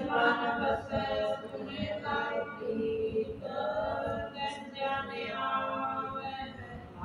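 A group of women singing a Sikh shabad (Gurbani hymn) together, in long held melodic phrases.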